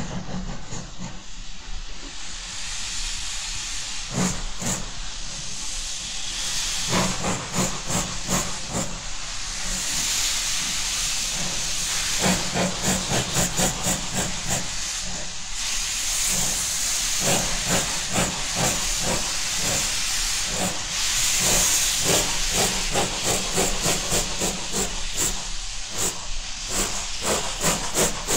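Pacific-type (4-6-2) steam locomotive starting a heavy train up a gradient with loud, continuous hissing of steam. Exhaust beats come in about four seconds in and quicken into rapid, uneven runs as the driving wheels slip.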